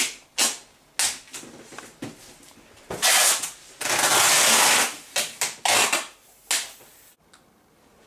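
Cardboard boxes and plastic bags being handled while packing for a move: a run of sharp scrapes, rustles and knocks, with two longer hissing scrapes about three and four seconds in.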